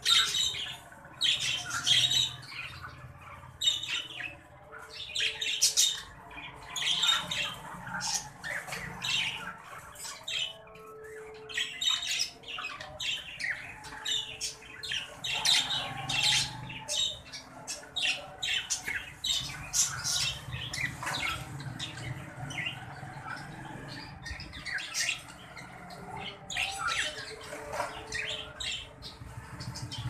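Budgerigars chattering, a rapid run of short squawks and chirps repeating several times a second without a break.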